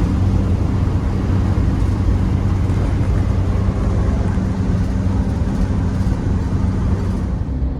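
Campervan driving along at speed: steady engine and road noise with a constant low hum.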